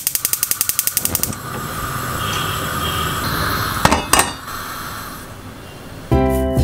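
Gas hob's spark igniter clicking rapidly, about fifteen clicks a second, for just over a second, then the burner lights and its flame hisses steadily. Two sharp clicks come about four seconds in, and music begins near the end.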